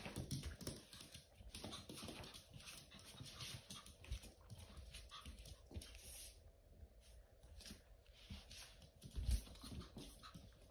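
Faint, irregular clicking and tapping of a small Pomeranian puppy's claws and paws on a hard wooden floor as it moves about, with a soft low thump about nine seconds in.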